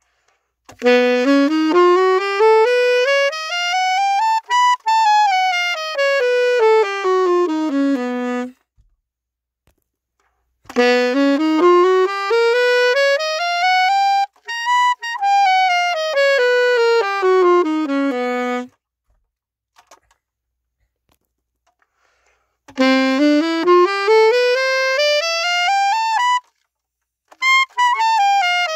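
Alto saxophone playing scale practice: runs that climb about two octaves note by note and come back down. There are three runs with short pauses between them, then one falling from the top near the end.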